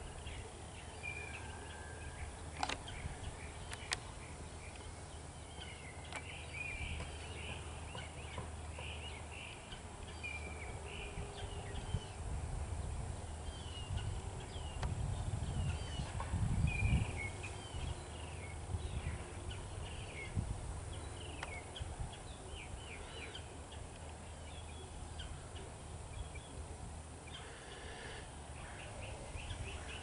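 Small birds chirping and twittering in short, high notes throughout, over a steady low hum. Two sharp clicks come a few seconds in, and a low rumble swells about halfway through.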